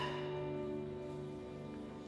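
Piano, two violins and cello holding a final chord that slowly fades away.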